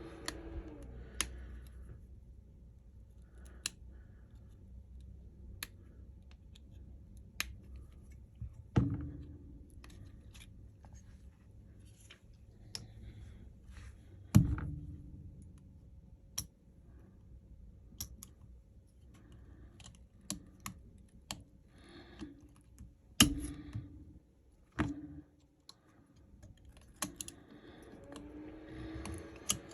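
Small tools clicking and tapping on a smartphone's frame and parts during disassembly, in scattered sharp clicks with a few louder knocks.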